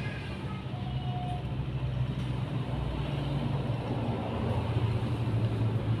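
A running engine's steady low hum, like a motor vehicle, growing a little louder toward the end.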